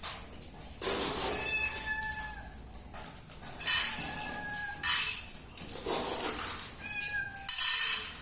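A domestic cat meowing about three times, each meow a fairly level drawn-out call. Between the meows come short, loud bursts of hissy noise.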